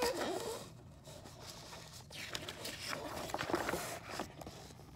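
A page of a picture book being turned by hand, the paper rustling and crackling for a couple of seconds.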